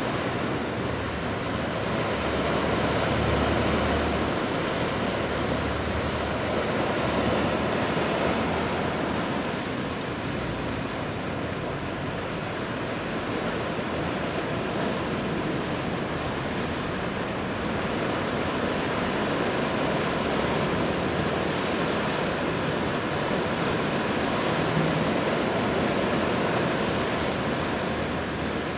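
Steady seaside wind and water noise: gentle waves washing, with wind buffeting the microphone in low rumbles that come and go.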